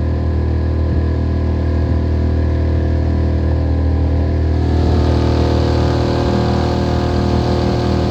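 Small outboard motor running steadily, pushing a boat along at an even pitch, with a hiss that grows louder from about halfway through.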